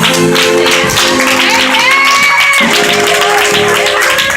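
Live church band music: held organ or keyboard chords over a steady drum beat, with a single held note near the middle.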